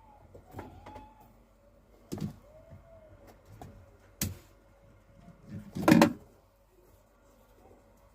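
Washing machine being handled: a few separate knocks and clunks, the loudest about six seconds in, with faint short squeaks between them.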